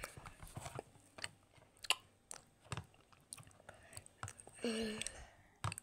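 Irregular small clicks and crackles, as of small objects being handled close to the microphone, with a short hummed voice sound a little past the middle.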